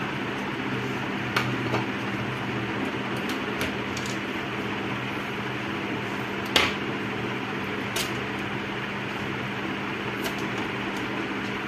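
Scattered small clicks and taps from handling a monitor's power-board cable connectors and sheet-metal chassis, one sharper click about six and a half seconds in. A steady fan-like hum runs underneath.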